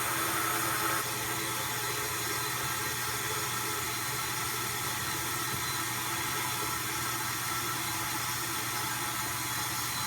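Steady whirring background noise with a low hum, dropping slightly in level about a second in.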